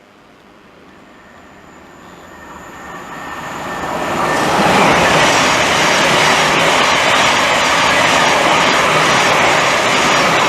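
A 12-car Thameslink Class 700 electric multiple unit passing through the station at speed: a rushing rail noise that builds over the first four seconds or so, then holds steady and loud.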